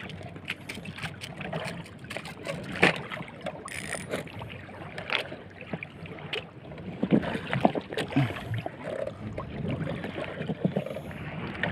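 Choppy water sloshing against a small outrigger boat, with scattered irregular knocks and clicks from fishing gear being handled in the boat.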